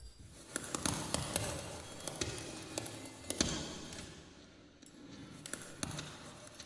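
Experimental percussion and electronics: a dense, irregular scatter of sharp clicks and taps over a hissing wash, starting suddenly, thinning out about two-thirds of the way through and building again near the end.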